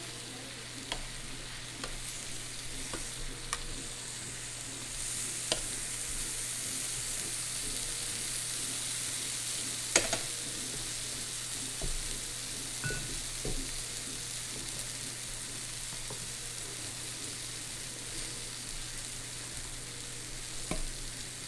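Food cooking with a steady sizzling hiss on an electric hot pot and grill, the hiss growing louder about five seconds in. Scattered light clicks and one sharper knock about ten seconds in.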